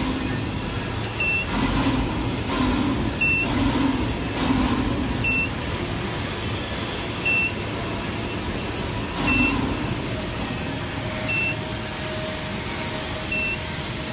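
A short, high electronic beep repeating about every two seconds over steady workshop machinery noise, with a faint high whine that starts about a second in, slides down in pitch and then holds steady.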